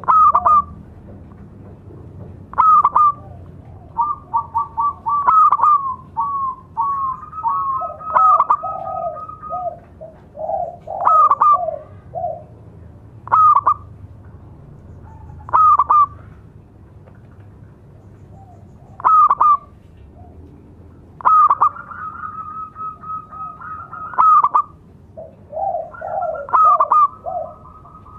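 Zebra doves (local perkutut) cooing: loud short coos every two to three seconds, with runs of rapid staccato coo notes between them, at times two birds calling over each other.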